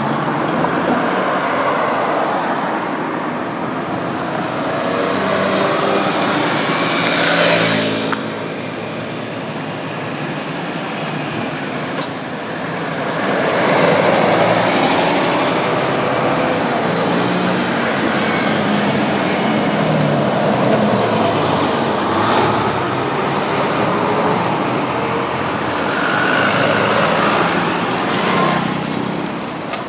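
Road traffic passing close by: cars going past one after another, swelling and fading with each pass, a bus passing about halfway through and a small step-through motorcycle near the end. A single sharp click about twelve seconds in.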